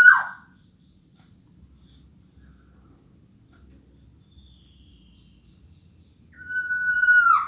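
Black-naped oriole (kepodang) giving its drawn-out whining 'rintihan' call: one long level note ends in a sharp downward slide just at the start, and another long level note begins near the end. A steady high insect drone runs underneath.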